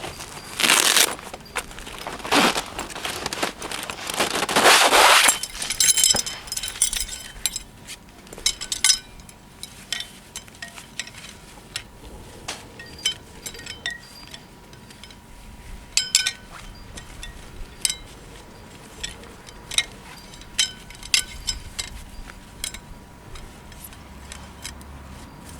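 Small hard items, cookware or utensils, clinking and knocking as they are handled, many short sharp clinks spread out. In the first five seconds there are three loud bursts of noisy rustling.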